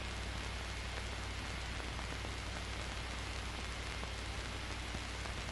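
Steady hiss with a low hum and a few faint ticks: the background noise of an old film soundtrack.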